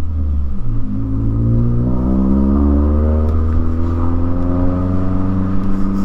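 2009 Mazda3's 2.3-litre four-cylinder with an untuned straight-piped racing header and high-flow cat, loud under acceleration. The engine note drops briefly in the first second, then climbs steadily as it pulls through a gear.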